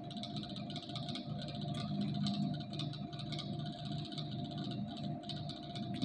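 Karl Fischer titrator and its magnetic stirrer running during a titration: a steady hum with a light, fast, irregular rattling ticking over it.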